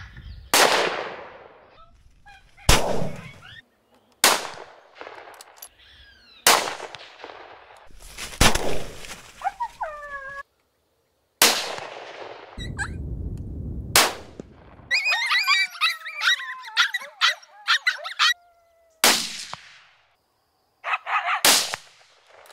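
Rifle shots, about nine single sharp cracks a second or two apart, each trailing off in an echo. Near the middle, a few seconds of high, falling, wavering yips and yelps typical of coyotes.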